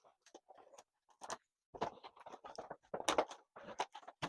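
Packaging being handled as a box is opened: rustling and scraping in short, irregular bursts.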